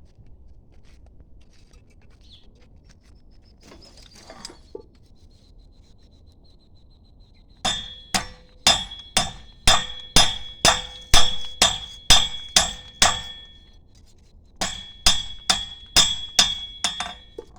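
Hammer striking a steel spear blade in a steady run of ringing blows, about two a second. The blows pause briefly, then resume in a second, slightly quicker run.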